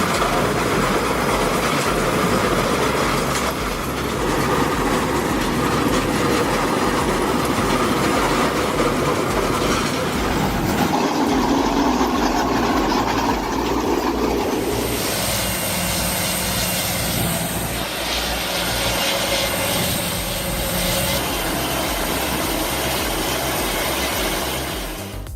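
Heavy machinery running, a steady loud mechanical rumble with some clattering, changing character about 15 seconds in.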